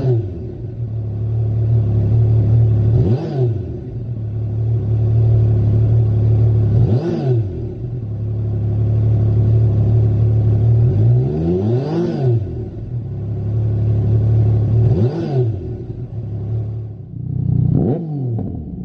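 Yamaha MT-09 Tracer's 847 cc three-cylinder engine idling and revved in five quick blips, each rising and falling back to idle. Most of it is heard through the standard silencer; the last blip, near the end, is through a Lextek SP1 aftermarket slip-on silencer.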